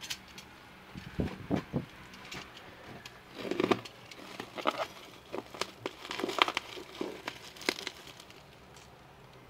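Plastic courier mailer being torn open and handled: irregular crinkling and rustling of the plastic, with a few dull thumps about a second in.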